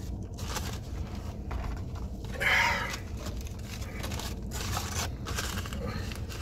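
Paper food wrappers rustling as fast-food sandwiches and fries are handled, over a steady low hum, with one brief louder sound about two and a half seconds in.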